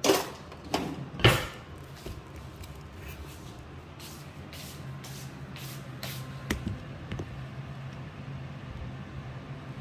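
Footsteps on a tiled floor, about two a second, with three louder knocks in the first second and a half, over a steady low hum.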